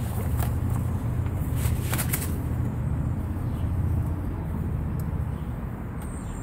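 Foil ration pouches crinkling and rustling as they are handled and set down, with a few sharp crinkles about two seconds in, over a steady low rumble.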